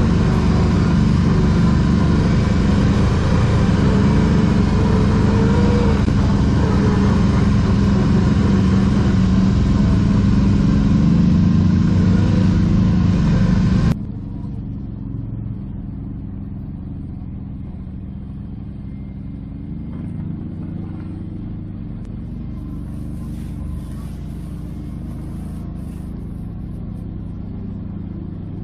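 ATV engine running loud and close while riding, its pitch rising and falling a little with the throttle. About halfway through it cuts abruptly to a quieter, steadier engine sound.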